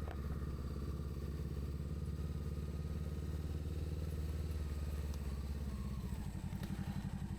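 Honda CBR sportsbike engine running at a steady pace, then backing off about six seconds in, its note turning into a lower, uneven pulsing beat.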